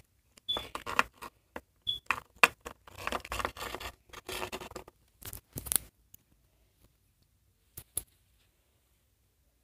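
Clicking, scraping and rustling of small hard objects being handled and moved about, busy for the first six seconds or so, then just a few separate clicks.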